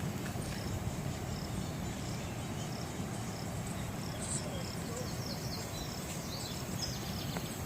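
Outdoor ambience: faint, short, high bird chirps repeating over a steady low rumble.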